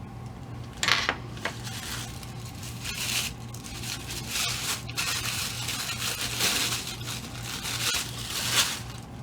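Packaging being unwrapped by hand, with irregular crinkling, rustling and tearing and sharper crackles about a second in and near the end.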